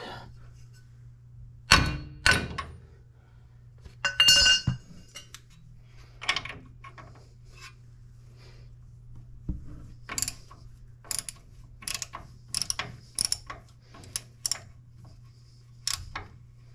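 Metal tools knocking and clattering against the truck's front suspension, one clatter ringing briefly, then a ratchet wrench clicking in short strokes, about two a second, as the nuts on a new upper ball joint are tightened.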